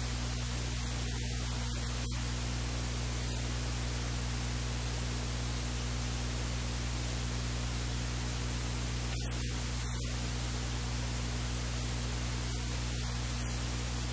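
Steady electrical hiss with a low mains hum underneath, constant throughout.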